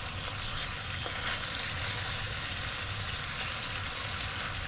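Short ribs and cauliflower sizzling steadily in an enamelled pot as they are stirred with a wooden spatula: the cooking water has boiled off and the food is now sautéing.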